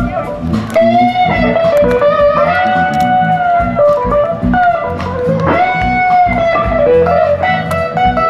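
Blues music led by an electric guitar, playing long held notes that bend in pitch over a steady bass accompaniment.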